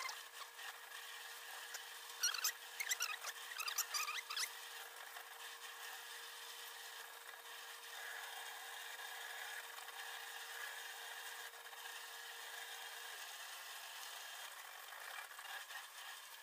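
Leafy vegetable stems being snapped and stripped by hand, with quick crackling rustles about two to four seconds in. A faint steady high-pitched hum runs underneath.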